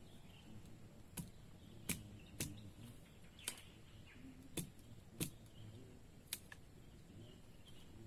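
Seven sharp knocks at uneven intervals, over faint bird chirps.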